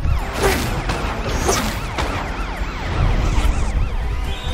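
Cartoon siren wailing quickly up and down over and over over a steady low rumble, with two quick whooshes about half a second and a second and a half in.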